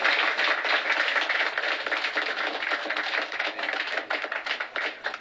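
Audience applauding, a dense patter of claps that thins out near the end.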